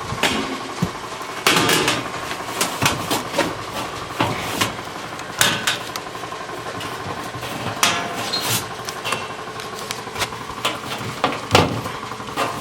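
Thin sheet-metal patch, cut from an old appliance panel, clanking and knocking irregularly as it is worked, over a steady mechanical hum.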